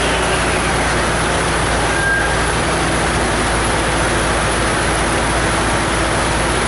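Whipple-supercharged Ford 4.6L three-valve V8 in a Mustang running steadily at low speed on a chassis dyno, mixed with the steady loud rush of the dyno's cooling fans.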